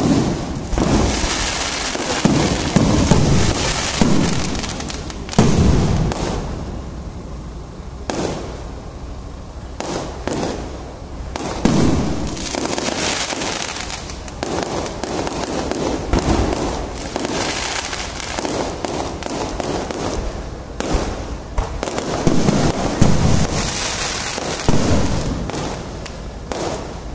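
Aerial firework shells bursting one after another: repeated loud bangs, with crackling and sputtering between them.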